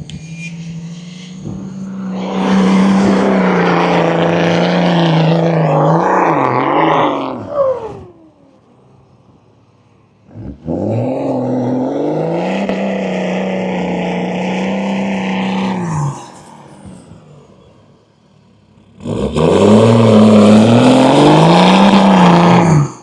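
Off-road 4x4 engine revving hard under load, in three long stretches with quieter gaps between them. The pitch wavers up and down as the revs rise and dip.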